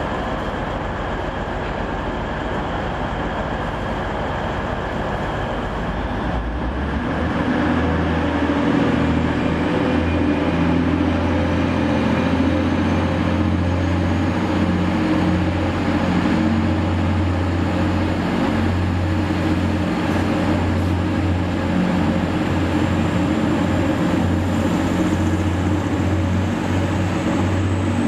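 Class 185 Desiro diesel multiple unit's Cummins diesel engines idling, then opening up about seven seconds in as the train pulls away from the platform and running steadily under power. A faint high whine rises slowly in pitch over the second half.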